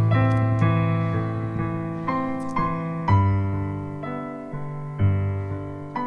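Piano-led instrumental backing track of a slow rap song: chords struck and left to fade, changing about once a second, with heavier low notes entering a little after three seconds and again at five.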